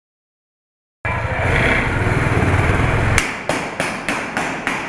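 A loud rushing noise with a low rumble, then about six sharp gunshots in a steady string, roughly three a second: a prop gun firing blanks on a film set.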